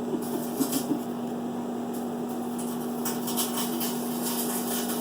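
Microwave oven running with a steady hum while heating an opened can of chili, with a few faint knocks in the first second.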